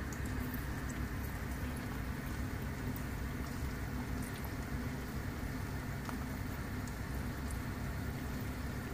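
Pork wontons deep-frying in hot oil in a pan: a steady sizzle with small scattered crackles.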